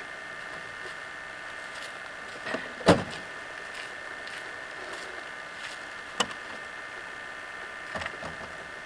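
A car door is shut with a single thump about three seconds in, then a sharp click a few seconds later and a few lighter clicks near the end as the car's boot lid is unlatched and opened, over a steady hum.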